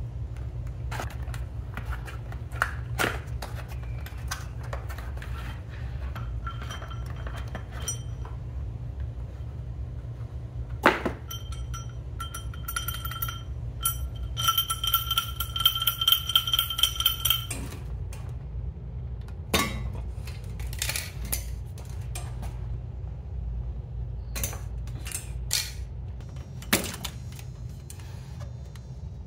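Metal mower parts and bagged hardware clinking and knocking as they are handled and set down, in irregular single knocks. About halfway through, a struck metal part rings for a few seconds. A low steady hum sits underneath.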